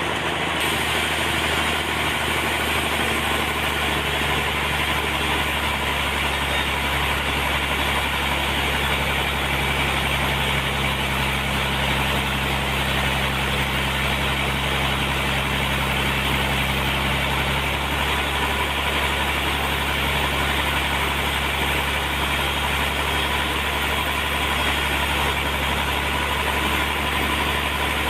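A sawmill's engine and saw running at a steady pitch, with an even mechanical hum; a low tone within it drops out about two-thirds of the way through.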